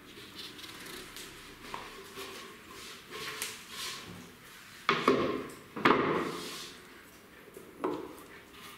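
Wooden knocks and handling noise of a plywood drawer box being fitted under a workbench: light taps and scraping, then two loud knocks about a second apart a little past the middle, and a lighter knock near the end.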